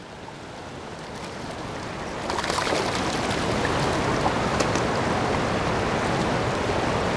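Rushing, splashing water of a dam's tailwater, growing louder over the first couple of seconds and then steady, with a few faint ticks.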